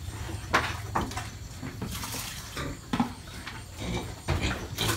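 Irregular knocks and clatter, with a few short low grunts from pigs.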